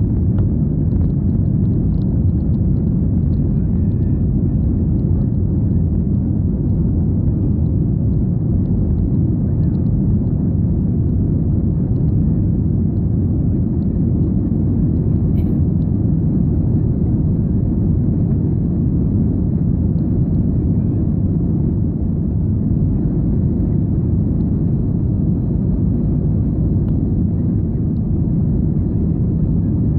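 Steady low rumble inside the cabin of an Airbus A320 rolling along the ground, the engines and wheels holding an even level with no spool-up.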